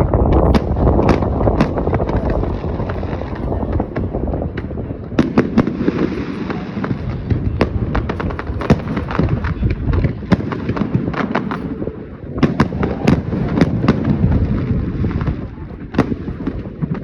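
A fireworks display: rapid, overlapping booms and sharp cracks over a continuous low rumble and crackle, swelling in waves about every five to seven seconds.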